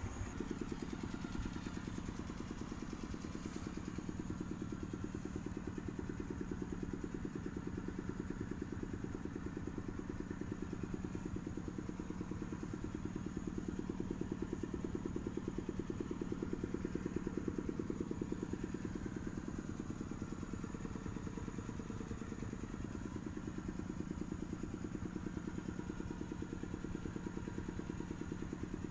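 Liquid-cooled engine idling steadily with an even, fast clatter, a little louder about halfway through.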